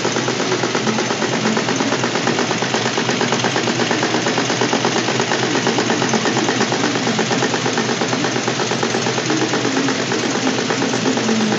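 Automatic polishing-wheel sewing machine running steadily, its needle stitching a spiral seam through a cloth buffing wheel with a rapid, even clatter.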